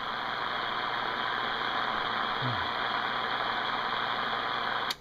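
CB radio receiver hiss: a steady rush of static from an open channel during a keyed-up transmission, ending with a sharp click near the end as the carrier drops.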